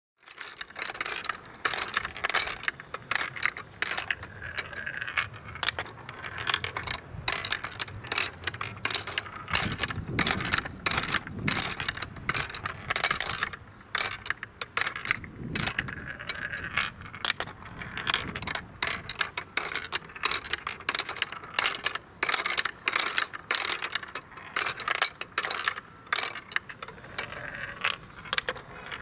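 Wooden marble run in motion: marbles clicking, knocking and rattling as one ball rolls down and its weight lifts the other balls up one step each on wooden lever steps. The clicks come thick and irregular, several a second.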